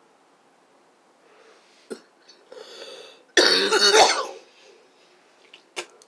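A woman coughing while smoking a cigarette. A breathy intake is followed about three and a half seconds in by one loud cough lasting about a second. There is a sharp click shortly before it and another near the end.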